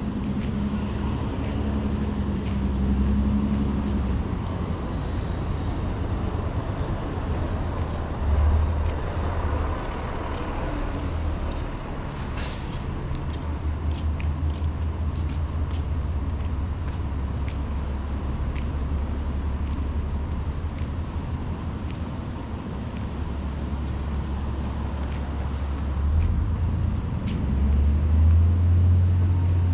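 City street traffic: vehicles running past with a low rumble throughout, a short hiss about twelve seconds in, and a louder swell near the end.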